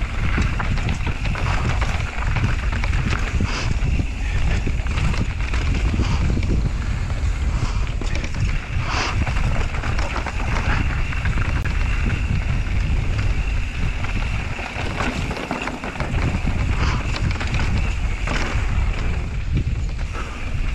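Wind buffeting a GoPro's microphone during a fast mountain-bike descent, a constant low rumble, over the crunch of knobby tyres rolling on dirt and loose rock. Short clatters from the bike hitting rocks come through here and there.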